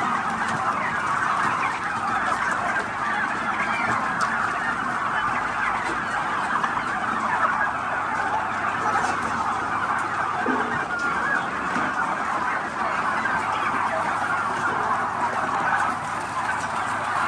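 A large flock of several hundred domestic turkeys calling all at once: a dense, steady chatter of many overlapping calls.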